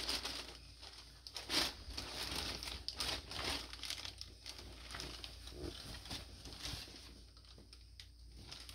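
Plastic packaging bag crinkling and rustling in irregular bursts as a garment is pulled out and handled, loudest in the first few seconds and dying down toward the end.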